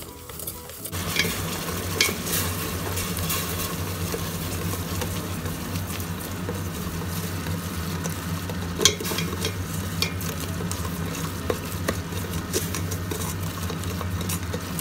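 Sugar-and-water syrup bubbling and sizzling in a pot as it cooks toward caramel, stirred with a utensil that scrapes and now and then knocks against the pot. The sizzle starts about a second in; the sharpest knock comes near the middle.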